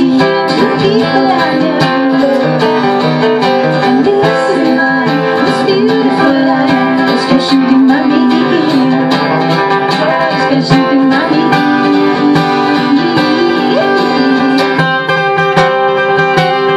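Two acoustic guitars played live: strummed chords with a melody line over them.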